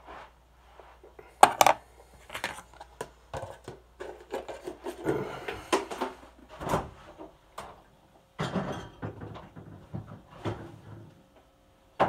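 Kitchen dishes and utensils being handled: irregular knocks, clinks and short scrapes, the loudest a sharp knock about one and a half seconds in.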